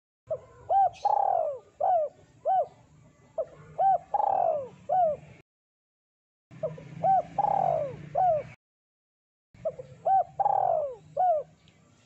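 Spotted dove cooing: phrase after phrase of short coos, each phrase carrying one longer coo that falls in pitch, with brief gaps of silence between phrases.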